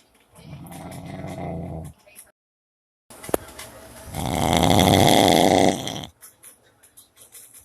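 Loud snoring: two long rasping snores, the second louder and about two seconds long, with a short click between them.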